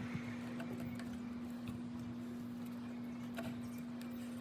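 A steady low hum with a few faint clicks and small handling noises as fingers work at wires in the liftgate wiring harness.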